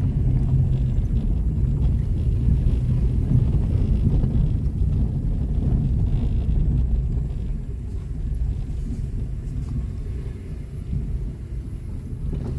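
Low, steady rumble of a car driving on a rough dirt road, heard from inside the cabin: engine and tyre noise, easing a little past the middle.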